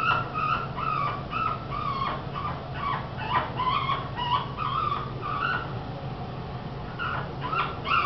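Amazon parrot giving a courtship call: a rhythmic series of short, repeated "eh eh eh" notes, about two a second, breaking off for a moment before the end and then starting again.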